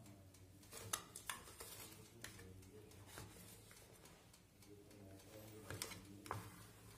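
Faint soft scraping of a silicone spatula smoothing thick cake batter in a metal loaf tin, with a few sharp light clicks of the spatula or fingers against the tin.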